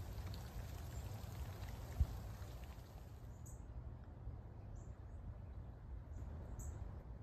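Rain ambience, a steady low rumble with a fine patter of drops, and a single low thump about two seconds in. After about three and a half seconds the patter and hiss drop away, leaving the faint rumble with short high chirps every second or so.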